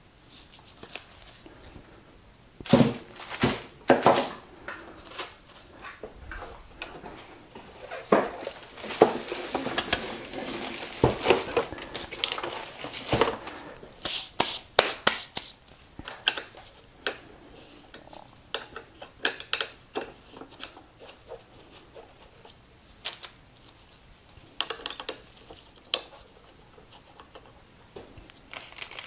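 Irregular clinks, clatters and knocks of hand tools and parts being handled while a fire-damaged Gotway ACM electric unicycle is torn down, with a few loud knocks about three to four seconds in and a busy run of clatter in the middle.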